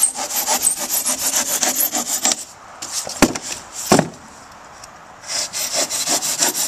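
Handsaw cutting through an expanded-polystyrene ICF foam block, a quick back-and-forth rasping stroke. The sawing pauses about halfway through, with two sharp knocks in the gap, then starts again near the end.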